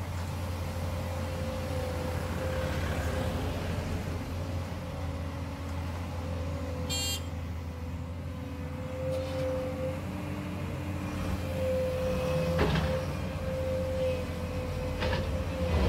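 Volvo crawler excavator's diesel engine running steadily as the machine digs and swings gravel, with a steady whine over the low engine drone. A couple of knocks come in the second half.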